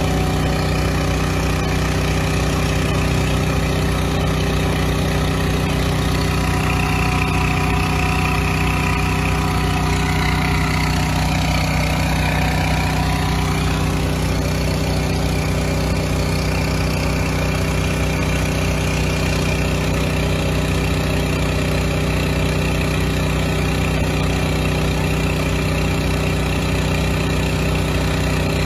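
An engine running steadily at a constant idle, unchanging throughout, with a faint falling tone about halfway through.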